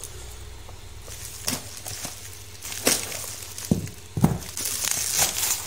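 Bubble wrap being pulled off a cardboard box: scattered crackles and a couple of dull knocks as the box is handled, then a longer stretch of crinkling near the end.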